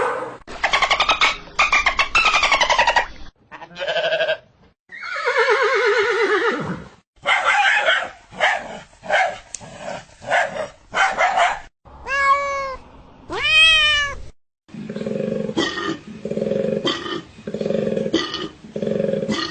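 A girl imitating animal calls with her voice, one after another. There are pulsing calls, a long falling call about five seconds in, two sharp rising cries around twelve to fourteen seconds, and a run of short, evenly spaced calls near the end.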